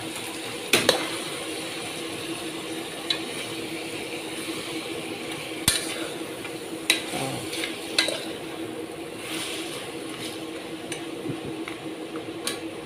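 Beef chunks being stirred and sautéed in an aluminium pot with a metal spoon: the spoon scrapes through the meat and knocks sharply against the pot about five times, over a faint sizzle of the meat in hot oil and a steady low hum.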